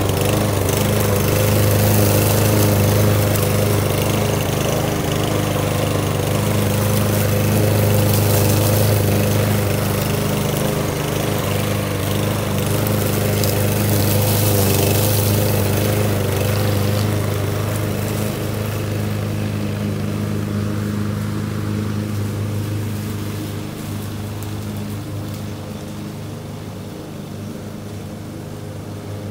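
Walk-behind gas push lawn mower running steadily while cutting grass. Its engine note gets fainter over the last several seconds as the mower moves away.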